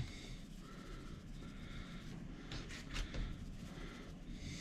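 Faint handling sounds of hands rubbing salt into whole bluegills on a board, with a few soft scrapes about two and a half to three seconds in.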